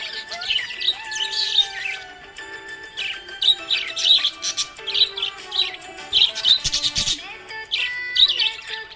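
Budgerigars chirping and warbling in quick, busy clusters of high chirps, over background music with long held tones.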